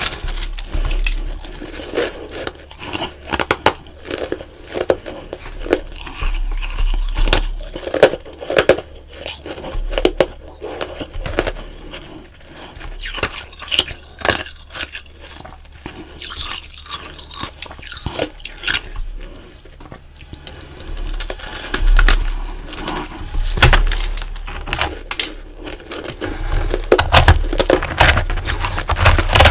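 Close-miked biting and chewing of flaky, powdery frozen ice: a long run of crisp crunches, sparser and quieter through the middle and denser again near the end.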